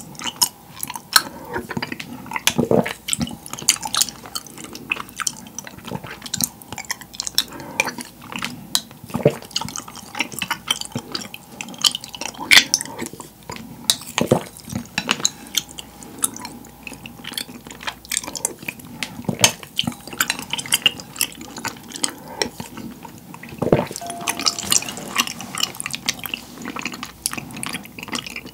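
Spoon scooping taro milk tea and chewy tapioca pearls out of a glass bowl: a steady run of small clinks and scrapes against the glass, with liquid stirring and dripping, and close-miked eating of the spoonfuls.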